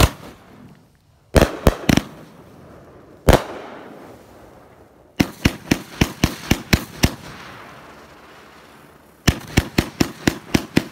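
Iron Gorilla multi-shot firework cake going off, its shells launching and breaking with sharp bangs. There is a single bang at the start, a quick group of four, another single, then two rapid volleys of about eight bangs each, with the noise of each group dying away in between.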